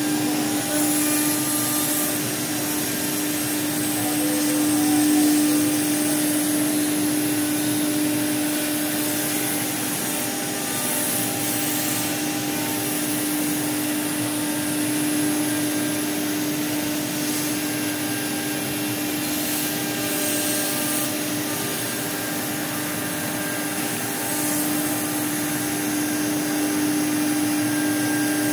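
CNC router spindle spinning a cutter that carves lettering into a wooden board: a steady tone over the continuous rasping hiss of the bit cutting wood.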